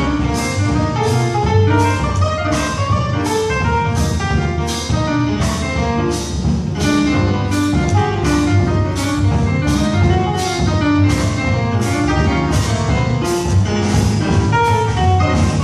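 Jazz big band playing live, with upright bass, piano and horns over a drum kit that keeps time on the cymbal about twice a second.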